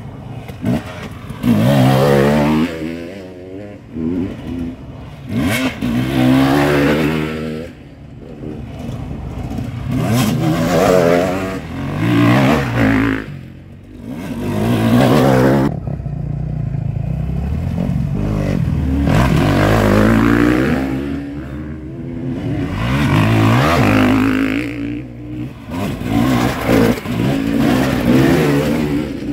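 Several off-road motorcycles racing past one after another, their engines revving up and dropping off repeatedly, swelling loud as each bike comes close and fading as it moves away.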